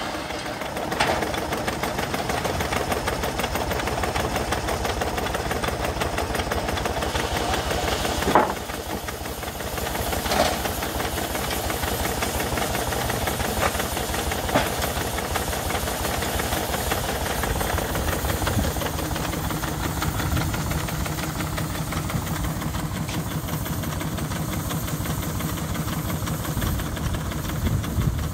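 An engine running steadily with a fast, even beat, with a sharp knock about eight seconds in and a few lighter clicks after it.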